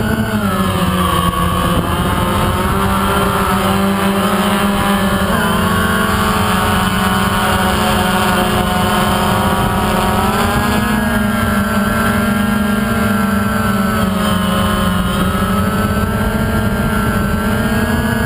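DJI Phantom quadcopter's four motors and propellers buzzing loudly, heard from the camera mounted on the drone. The pitch shifts with throttle, rising around the start and again about ten seconds in as it climbs.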